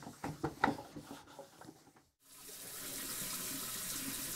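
Cloth wiping the sheet-metal lid of a CD player, window cleaner on it, in a quick run of rubbing strokes that fade out about two seconds in. After a brief silence, a steady even hiss begins.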